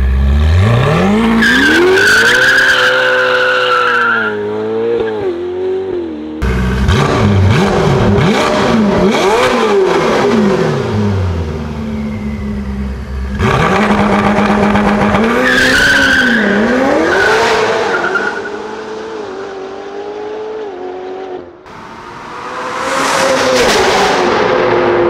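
Ferrari F8 N-Largo's twin-turbo V8 through a Novitec exhaust, revving hard and accelerating through the gears, its pitch climbing and then dropping at each shift, with abrupt cuts between runs. A high squeal rides over the engine twice.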